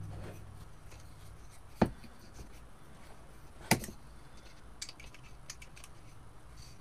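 Metal pliers working a hanger bolt into a wooden candlestick by hand: two sharp clicks about two seconds apart as the grip is reset, with a few fainter ticks later.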